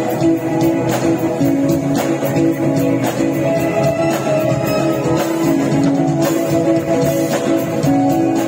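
Live band music playing steadily from the stage, with sustained notes changing pitch throughout.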